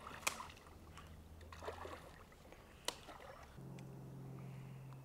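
Shallow creek water sloshing and splashing as someone wades through it, with two sharp clicks about two and a half seconds apart. A low steady hum starts about three and a half seconds in.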